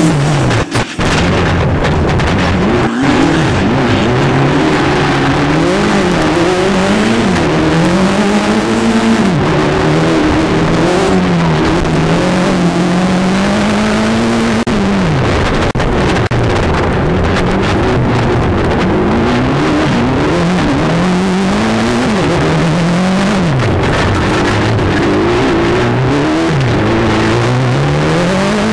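Turbocharged four-cylinder engine of a Mitsubishi Evo-powered off-road race sedan, heard from inside the car. It revs up and drops again and again as it shifts through its sequential gearbox and brakes for corners, over a steady rush of noise.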